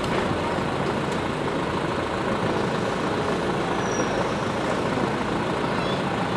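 Large diesel truck engine idling steadily.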